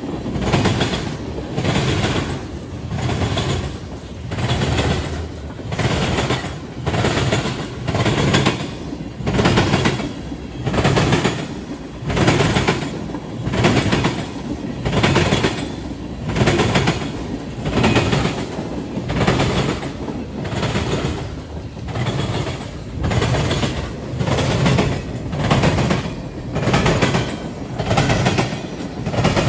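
Freight train of tank cars rolling over a railroad diamond crossing: the steel wheels hammer across the crossing's gaps in a loud, regular clatter that surges about once a second as each car's trucks pass.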